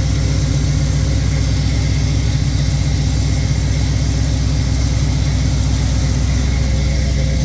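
A 1972 split-bumper car's engine idling steadily and smoothly after a cold start, running with its blown gasket freshly replaced.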